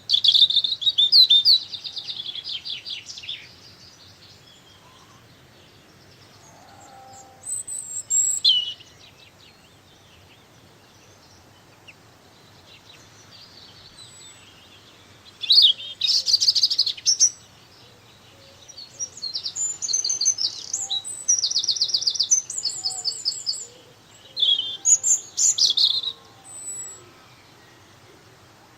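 A songbird at a garden bird feeder singing in separate bursts of quick, high notes and trills, with pauses of several seconds between phrases.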